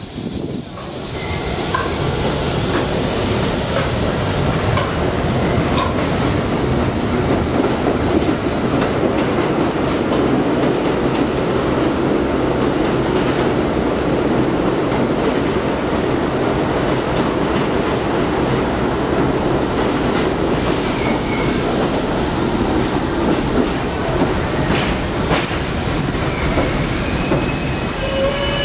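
R42 subway trains running over an elevated steel viaduct: a loud, steady rumble of wheels on rail with a clickety-clack. Near the end, the wheels squeal with steady high tones as a train pulls into the platform.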